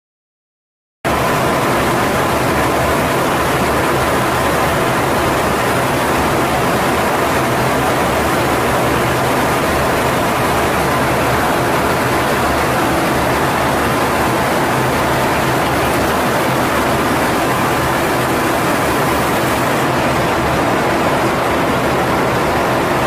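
Steady in-flight noise inside the flight deck of a USAF RC-135: airflow and engine noise as a loud, even rush with a faint steady tone, starting about a second in after silence.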